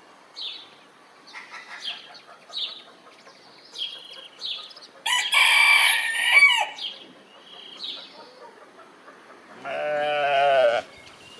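Chickens clucking in short repeated calls, a rooster crowing loudly about five seconds in, and near the end a goat giving one wavering bleat about a second long.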